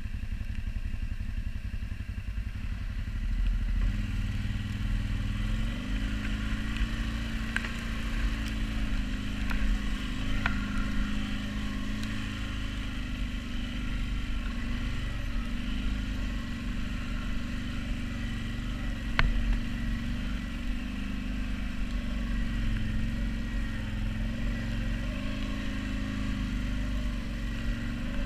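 CFMoto Terralander 800 ATV's V-twin engine running as it rides along, its pitch rising and falling with the throttle, and it picks up about four seconds in. A few short sharp clicks and knocks come through.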